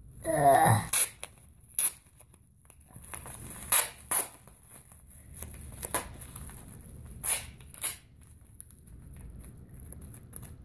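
Masking tape ripping off the roll as it is wound around a head: a longer, louder pull right at the start, then a string of short rips.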